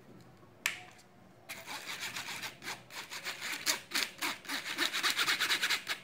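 A plastic-rimmed wire-mesh sieve being shaken and tapped to sift cocoa powder onto cake batter: a fast run of short scratchy taps starting about a second and a half in, after a single click.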